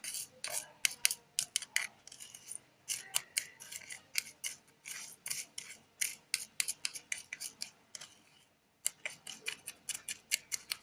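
A stirrer clicking and scraping against the container in quick, irregular taps while stirring salt into water to dissolve it, with a short pause a little after eight seconds in.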